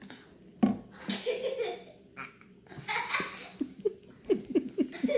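A burp about half a second in, followed by breathy laughter that ends in a quick run of short laughs.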